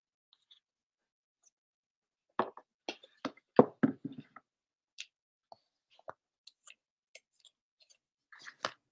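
Apple Watch box packaging and accessories handled by hand: a quick run of clicks, knocks and crinkles for about two seconds, then scattered light clicks and a short crinkling cluster near the end.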